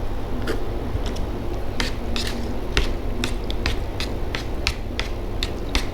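Crunching from chewing crisp fried food, a quick irregular run of sharp crackles over a steady low rumble.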